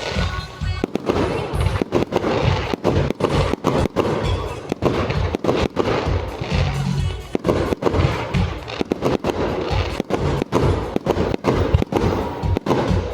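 Fireworks going off in rapid, irregular succession, several sharp bangs and cracks a second, over loud music.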